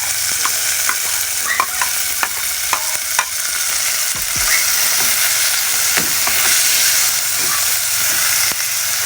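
Chicken, garlic and onion sizzling in a pressure cooker pot as a steady hiss, with a spoon clinking against the metal several times while they are stirred.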